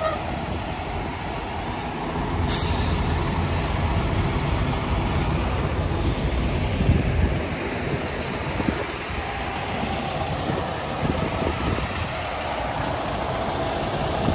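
Low, steady rumble of heavy diesel semi trucks running, with a brief hiss of air about two and a half seconds in.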